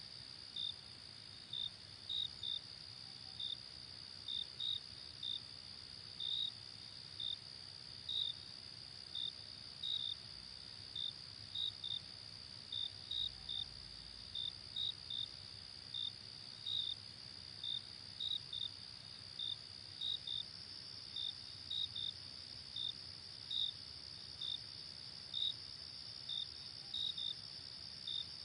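Night chorus of crickets: a steady high-pitched trill with short, sharp cricket chirps over it, about two a second at uneven spacing.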